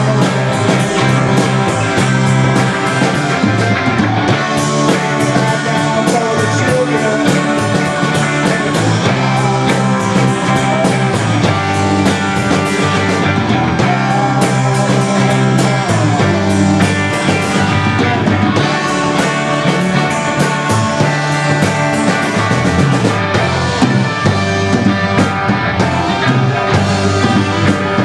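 Live rock band playing loud: electric guitars, bass guitar and drum kit, with the bass line moving between notes under regular drum hits.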